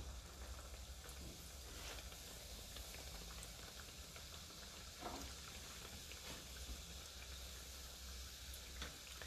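Strips of cenci dough deep-frying in seed oil in a pan: a faint, steady sizzle with fine crackles, over a steady low hum.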